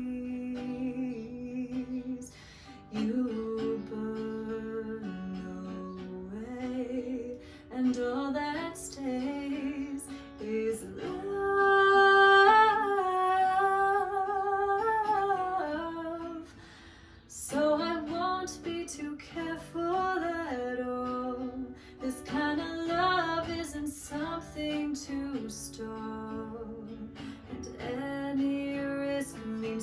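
A woman singing to acoustic guitar accompaniment, with a long, wavering held note near the middle that is the loudest part.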